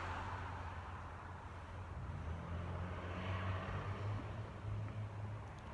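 Street traffic: passing car noise that eases off in the first second and swells again about three seconds in, over a steady low hum.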